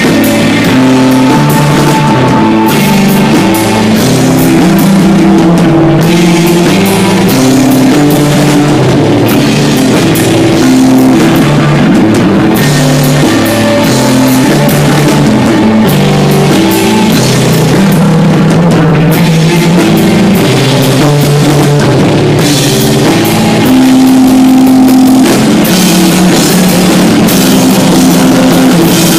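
Live instrumental desert rock band playing loud: sustained electric guitar and bass notes over a rock drum kit beat.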